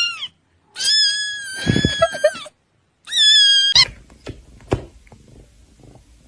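A cat meowing: three high-pitched meows, the middle one long and drawn out, followed by a few light knocks.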